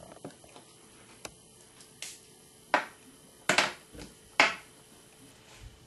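Ranger Adirondack acrylic paint dabber being squirted and pounced onto paper: about six short, sharp splats and taps, most under a second apart, the loudest three in the middle.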